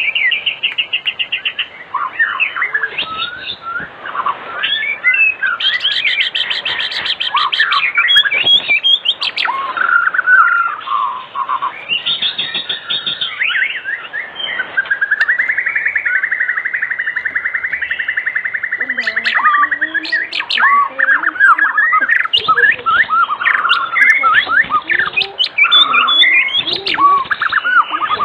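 White-rumped shama (murai batu) singing continuously and loudly, in the persistent 'gacor' style. It runs through a fast, varied string of clear whistles, slurred glides and chattering trills, with a long rapid trill held near one pitch in the middle.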